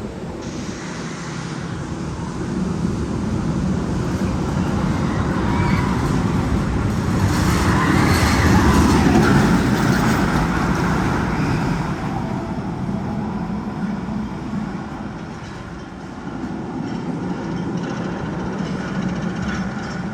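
Magnum XL-200 roller coaster train rumbling along its steel track, a continuous rushing noise that swells to a peak about halfway through and then fades.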